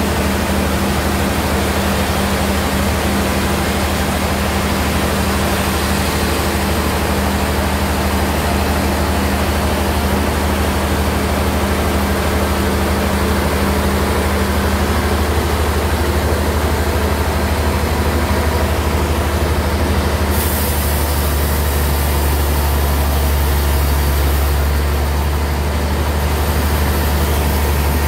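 Sawmill bandsaw running steadily, a loud low machine hum with a few constant tones; about two-thirds of the way through a higher hiss comes in and stays.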